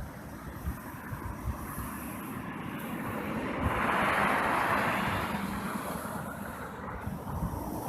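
Road traffic noise with a low rumble; a vehicle passes, its noise swelling about halfway through and fading away.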